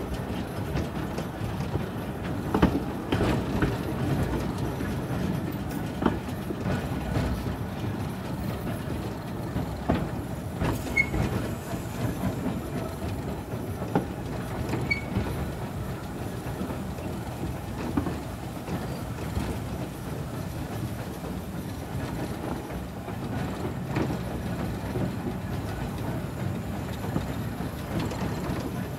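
Narrow-gauge Kerr Stuart steam tank locomotive running along the line, heard from its footplate: a steady rumble with single sharp clicks every few seconds as the wheels cross rail joints.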